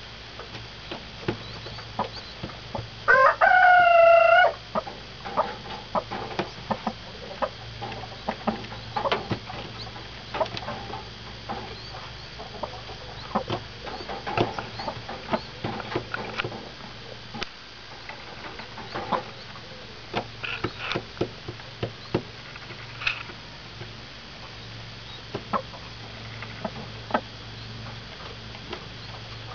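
A broody hen clucking softly in short, scattered calls among her pheasant chicks, with a few faint high chick peeps. About three seconds in comes one loud, drawn-out chicken call lasting about a second and a half.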